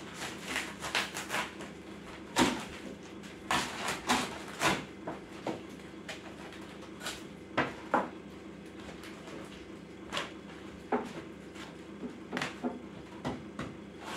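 A small kitchen hatchet (cleaver) chopping through stacked cabbage leaves onto a wooden cutting board: irregular chops, some much harder than others, with a steady low hum underneath.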